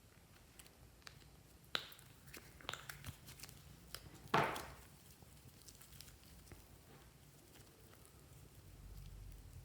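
Clear slime being kneaded and stretched by hand, giving scattered sticky clicks and small pops, with one louder squelch about four seconds in.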